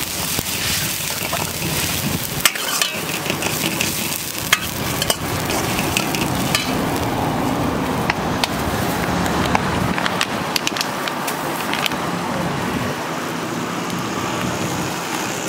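Shredded cabbage and other vegetables stir-frying in a steel wok over a gas burner: a steady sizzle, with the sharp scrape and clank of a steel ladle against the wok every so often.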